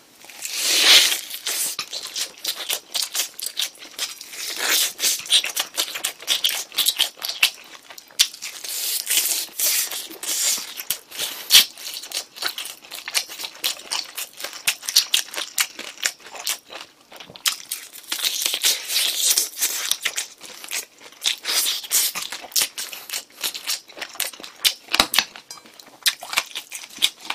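Crunching and chewing of crispy, cheese-powdered fried chicken close to the microphone: a big crackly bite about a second in, then a dense, irregular run of crunchy chews and crackles.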